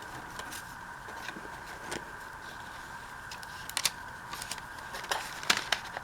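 Paper and card being handled while pieces are tucked into a journal: a few light clicks and rustles, spaced irregularly, over a steady faint background whine.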